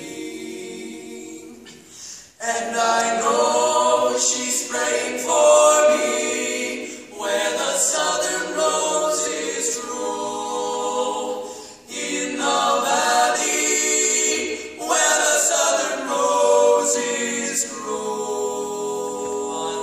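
Barbershop quartet of four male voices singing a cappella in close four-part harmony. A phrase fades out about two seconds in, and after a short break the singing comes back louder in held chords.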